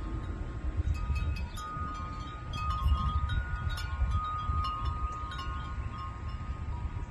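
Wind chimes ringing, struck again and again so that several clear tones around the same pitch overlap and hang on, with a low rumble underneath.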